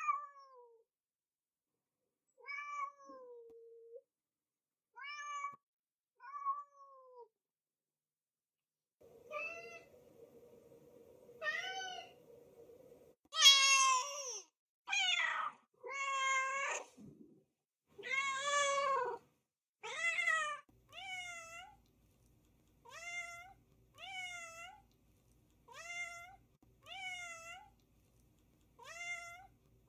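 Domestic cats meowing: a few short meows, then several louder, drawn-out meows in the middle, then a steady run of short meows about one a second.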